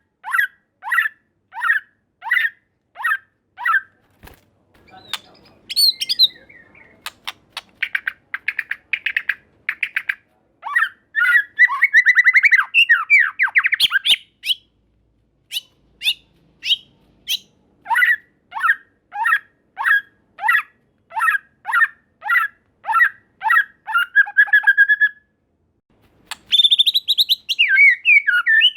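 White-rumped shama (murai batu) singing: a long series of short downward-sliding whistled notes, about two a second, broken in the middle by fast chattering runs, then more repeated notes and a jumbled, warbled phrase near the end.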